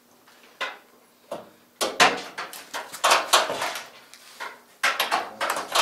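Irregular scrapes, knocks and rattles as a Fox-body Mustang's front bumper and its fasteners are worked into place, with the loudest bursts about two and three seconds in and another near the end.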